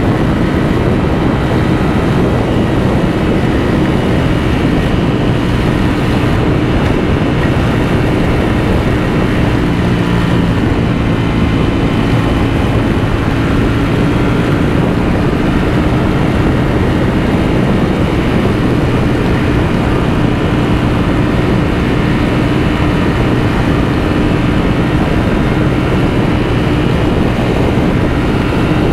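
Ducati V4 motorcycle engine running at a steady cruising speed, heard over dense wind and road noise.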